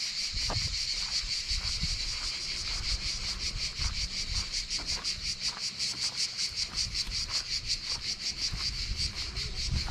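Cicadas buzzing in a loud, high chorus that pulses rapidly, about six beats a second, the pulsing growing more distinct partway through. Irregular low thuds run underneath.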